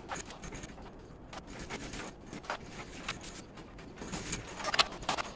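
Scattered light clicks, knocks and rubbing, with a louder cluster about four to five seconds in: handling noise from wire being set up and pulled through metal electrical conduit.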